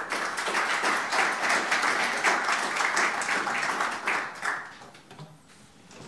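Audience applauding, a dense patter of many hands clapping that dies away about four to five seconds in.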